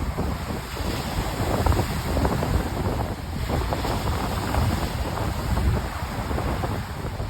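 Wind buffeting the microphone over the wash of waves breaking on a beach, a steady rush with gusty low rumbling.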